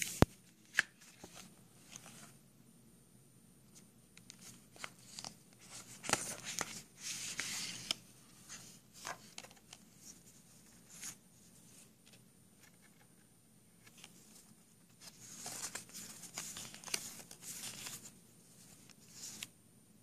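Paper leaflets and cards being handled and leafed through: intermittent rustling and flicking of paper in bouts, with a few short clicks, the sharpest just after the start.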